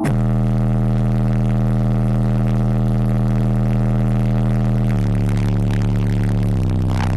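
High-output car audio system with DD Audio subwoofers playing a loud, sustained bass tone that starts abruptly and steps down in pitch twice, heavily distorted on the microphone inside the cabin.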